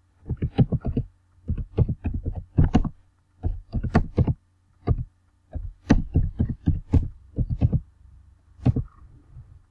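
Typing on a computer keyboard: quick, irregular runs of key clicks in bursts, with short pauses between words, over a faint steady low hum.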